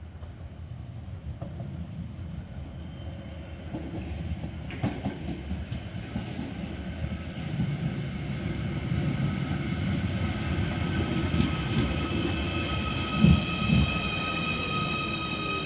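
Merseyrail Class 777 electric multiple unit approaching and running past: a rumble that grows steadily louder, with a steady high whine of several tones from its electric traction equipment building up over it. Near the end come two sharp knocks from the wheels about half a second apart, the loudest sounds, then a tone that falls in pitch as the train passes.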